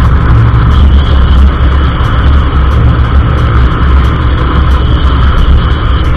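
Ride noise from a Yamaha automatic scooter cruising along a road: steady engine and tyre noise mixed with wind rushing over the camera microphone.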